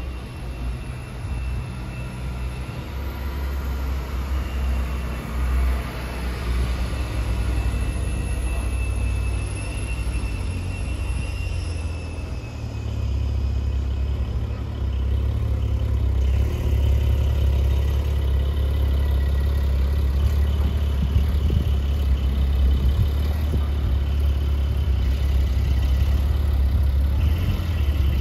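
Porsche 718 Boxster GTS 4.0's flat-six engine idling and running at low speed, a steady low rumble that grows louder about halfway through as the car comes close.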